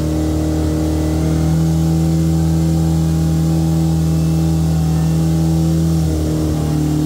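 Turbocharged Polaris RZR Pro R's 2.0-litre four-cylinder engine, fitted with a straight-through exhaust, running steadily at part throttle on a chassis dyno, out of boost, as wheel speed slowly climbs. The pitch holds nearly even, with a slight dip about six seconds in.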